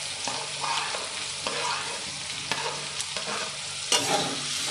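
Paneer cubes and vegetables sizzling in hot oil in a metal kadai, with a metal spatula scraping and stirring in several short strokes and a louder knock against the pan near the end.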